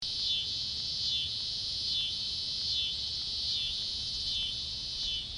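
A chorus of insects buzzing in a steady high drone that dips and swells in a regular beat, just over once a second.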